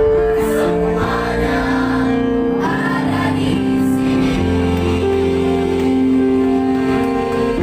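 Mixed high-school choir, boys' and girls' voices, singing in harmony and holding long chords that change every second or so.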